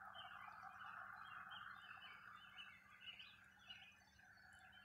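Faint birdsong: scattered short chirps over a steady, faint background drone.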